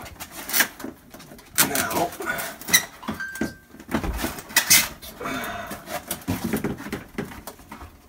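Plastic back panel inside a Samsung refrigerator's fresh-food compartment being pried loose by hand: an irregular series of plastic clicks, knocks and creaks as its edges pop free.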